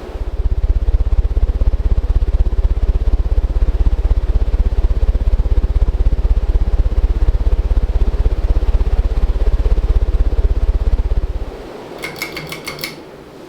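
Sears (CEI) 52-inch ceiling fan running fast, its blades' draft beating on the microphone in a loud, rapid low pulsing that stops suddenly about two seconds before the end. A quick run of sharp clicks follows.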